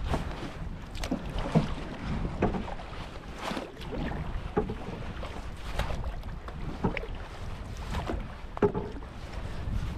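Water splashing and slapping at a small boat's hull about once a second as it moves over choppy water, over a steady rumble of wind on the microphone.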